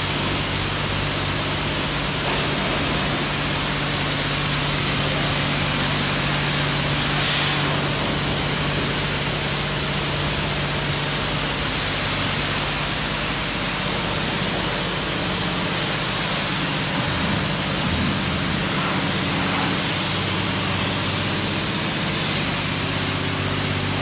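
High-pressure car wash wand spraying water onto a car's body, a steady hiss of spray with a low hum beneath it. A brief click sounds about seven seconds in.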